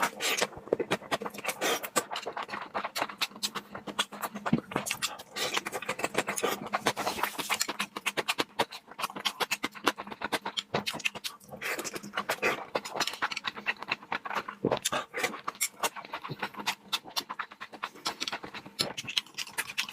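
Close-miked chewing and wet mouth sounds of someone eating salmon: a rapid, uneven run of smacks and clicks, over a faint steady hum.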